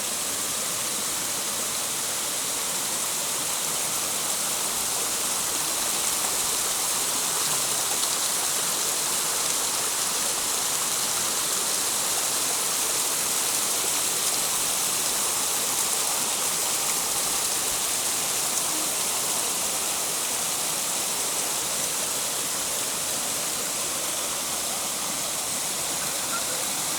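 Steady rush of a waterfall: an even hiss of falling water that holds at one level throughout.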